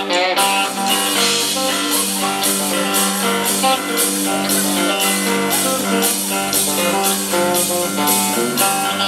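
Live blues band playing an instrumental break: electric cigar box guitar over drums keeping a steady beat of about two hits a second.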